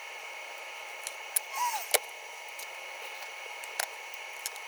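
A few light clicks and taps of a small metal eyeglass hinge part being set into an alignment holder, over a steady hiss.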